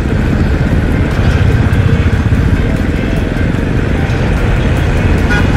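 Royal Enfield single-cylinder motorcycle engines running slowly at low revs. A brief higher-pitched tone comes in near the end.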